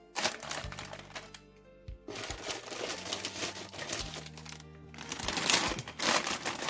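Background music with steady held bass notes, under crinkling and rustling from plastic-bagged model kit parts and packaging being handled, louder near the end.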